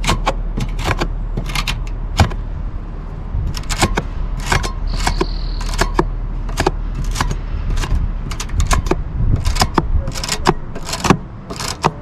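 Irregular sharp clicks and ticks, two or three a second, as a fin-straightening tool is drawn up through the bent aluminium fins of an RV air conditioner's condenser coil, over a steady low rumble.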